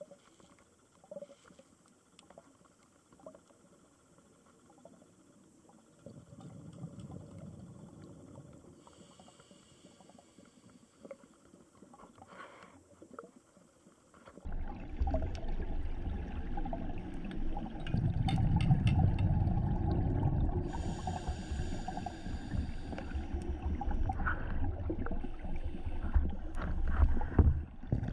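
Underwater sound picked up by a diver's camera in its housing. It starts quiet with faint scattered clicks, then about halfway turns suddenly into a louder muffled rumble with crackling, the sound of a scuba diver's exhaled bubbles and handling noise.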